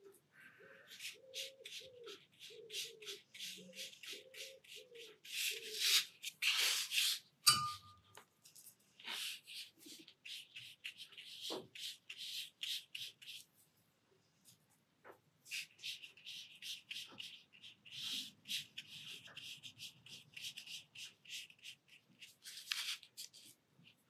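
Paintbrush stroking over watercolour paper in runs of soft scratchy swishes with short pauses, and a single knock about seven seconds in.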